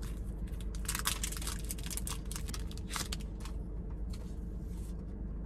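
Mint dark chocolate Kit Kat's candy-bar wrapper being torn open and crinkled: a fast run of crackles through the first three and a half seconds, then dying away, over a low steady hum.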